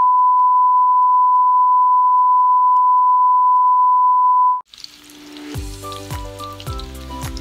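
A loud, steady, high-pitched test-tone beep plays under TV colour bars and cuts off sharply after about four and a half seconds. Then garlic begins sizzling in hot oil in a frying pan, with background music with a steady beat.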